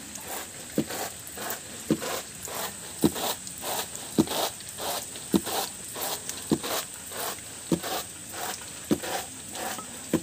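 Woven bamboo winnowing tray tossed rhythmically, a load of small insects rattling and pattering on the weave, with a sharp beat about once a second as each toss comes down.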